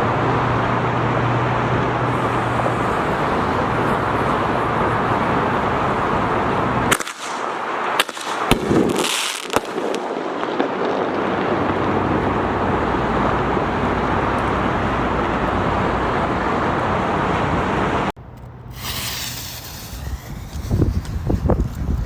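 Steady wind rushing on the microphone, with consumer fireworks going off over it. About a third of the way in come a few sharp pops and a short high hiss; near the end another hiss is followed by rapid crackling pops.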